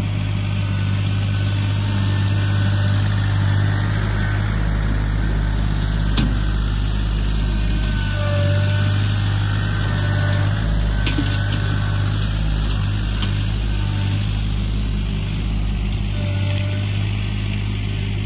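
John Deere 3025E compact tractor's three-cylinder diesel engine running steadily, with a few sharp clicks standing out over it.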